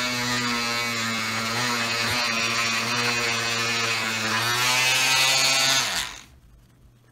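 Handheld electric oscillating multi-tool running steadily with a microfiber-wrapped blade, buffing polish into aluminum motorcycle cylinder fins; the hum carries a cloth-rubbing hiss and winds down abruptly about six seconds in as the tool is switched off.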